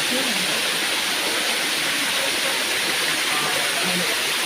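Steady rush of a waterfall, water crashing down without a break, with faint voices underneath.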